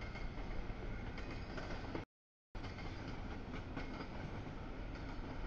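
Freight cars of a CSX double-stack container train rolling past with a steady rumble and wheel noise on the rails. The sound cuts out completely for about half a second about two seconds in, then comes back unchanged.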